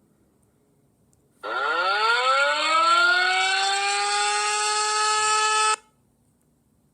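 A siren winding up: a loud tone that starts suddenly, rises in pitch over about a second and a half, then holds steady for a few seconds before cutting off abruptly.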